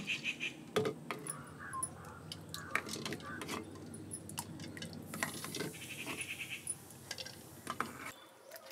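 Wooden spoon knocking and scraping in a clay pan as boiled eggs are scooped out and dropped into a clay pot of water, a series of light clinks and small splashes. A steady low rumble underneath cuts off suddenly near the end.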